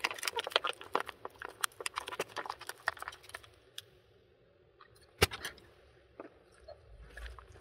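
A plastic sauce pouch is squeezed out and crumpled, a dense run of wet squirts and plastic crackles for the first three seconds. A single sharp snap a little after five seconds as disposable wooden chopsticks are split apart.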